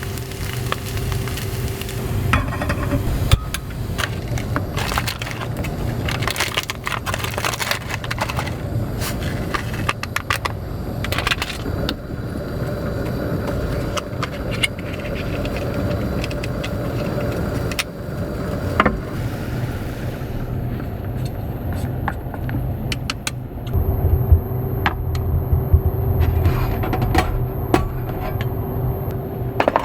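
A steady low rumble of strong wind against a small car, with many small clicks, clinks and knocks of things being handled inside.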